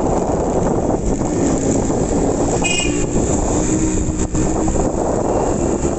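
Yamaha RX100's two-stroke single-cylinder engine running steadily as the motorcycle rides slowly along. A short high-pitched tone sounds about three seconds in.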